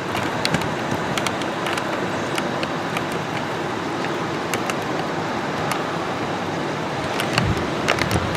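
Steady rush of storm wind with light rain, scattered raindrops ticking sharply throughout.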